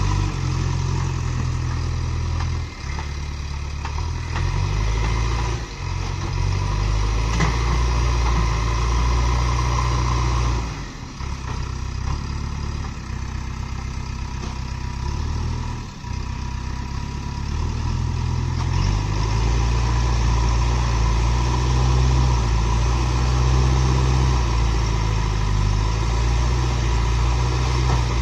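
Diesel engine of a JCB backhoe loader running with a steady low rumble, its level and pitch shifting every few seconds.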